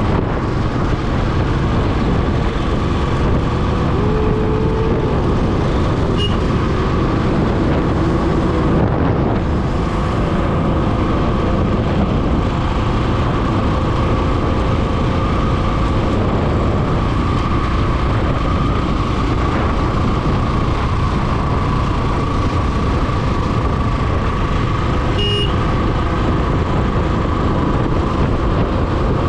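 Steady wind and road noise of a Royal Enfield motorcycle riding along a highway, with its engine running underneath.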